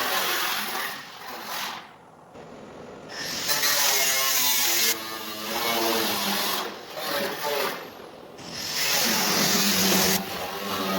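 A power tool running in bursts on bodywork, its pitch wavering as it takes and releases load. It drops away about two seconds in and again about eight seconds in.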